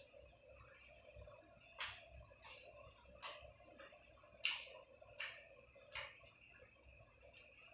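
Close-miked eating sounds: a person chewing a mouthful of rice and fish with wet mouth clicks and smacks, a sharp click about once a second.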